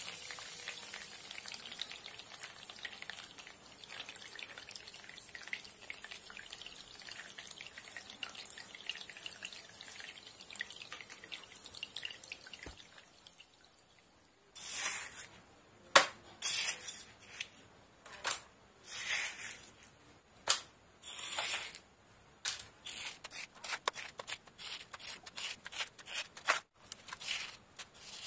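Water from a small battery-powered pump spraying out of holes in a pipe and splashing into a shallow pool, a steady hiss for about the first half. After a short quiet, a small trowel scrapes and spreads wet mud in short strokes.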